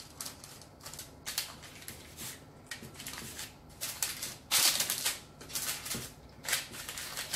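Hands tucking and pressing yeast-dough strands on a baking-paper-lined tray: irregular soft rustles and scrapes of the paper under the hands. The loudest burst of rustling comes about four and a half seconds in.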